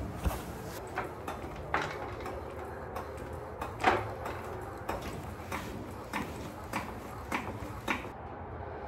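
Sharp metallic clicks, one every half second or so at an uneven pace, from a ratchet wrench being worked on a rear suspension bolt under a Chevy C10 pickup.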